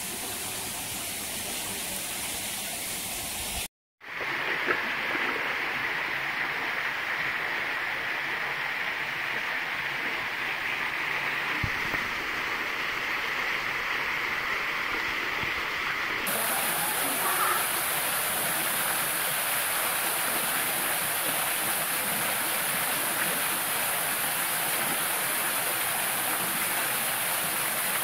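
Steady rush of falling and flowing water: a creek running among boulders, then a thin waterfall pouring into a pool. The sound drops out briefly about four seconds in and turns hissier about sixteen seconds in, where the shots change.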